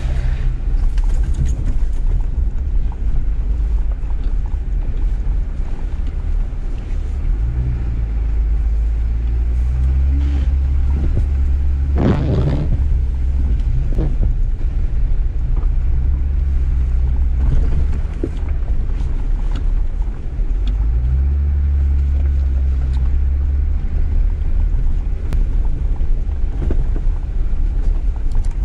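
Jeep Gladiator Rubicon driving slowly over a rough dirt track: its engine runs with a steady low rumble, its pitch shifting a little as the throttle changes. Short knocks and rattles come through from the rough ground, with a louder knock about twelve seconds in.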